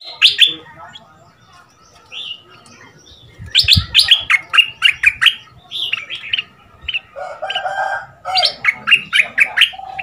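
Caged stripe-throated bulbul singing: bursts of quick, clear falling notes, repeated in phrases, with one burst at the very start, a longer run from about three and a half seconds in, and another near the end.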